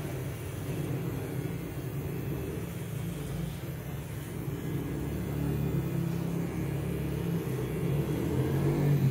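Cordless electric beard trimmer buzzing steadily as its blade cuts along the sideburn and cheek of a full beard.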